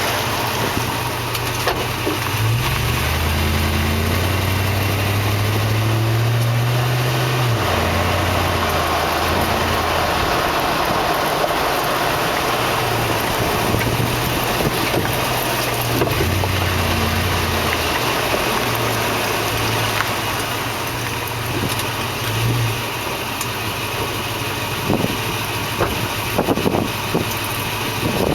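2004 Toyota Tundra's V8 engine running as the truck drives slowly, its pitch rising and falling, with road noise. A few short knocks come near the end, among the lesser rear-end clunks this truck makes.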